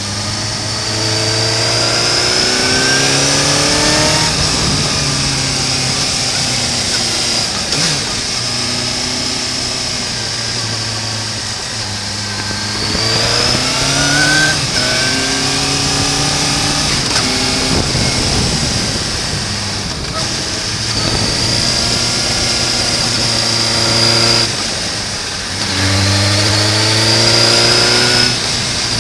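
Suzuki GSR 750 inline-four motorcycle engine under way, revving up in pitch three times (at the start, in the middle and near the end) and dropping back to lower, steadier running in between.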